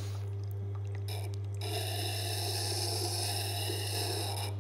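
Tormek T-8 wet sharpening machine running with a steady low hum. From about one and a half seconds in, the steel edge of a recurved gut-hook knife held in a jig grinds against the wet stone, then stops just before the end.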